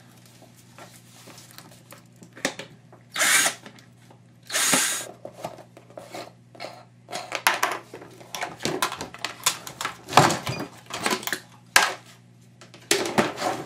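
Ryobi cordless drill/driver running in two short bursts, backing screws out of a plastic humidifier housing. Then a run of clicks and knocks as the plastic parts are handled and the housing is pulled apart.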